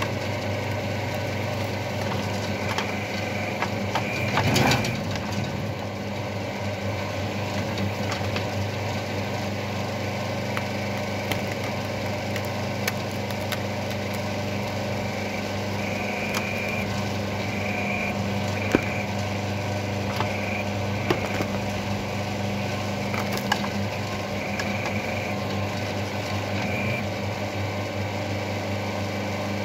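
The hydraulic pump of a homemade electric mini excavator hums steadily while a root-ripper attachment tears tree roots out of a stump. A loud crunching of breaking wood comes about four seconds in, and sharp cracks of snapping roots come later.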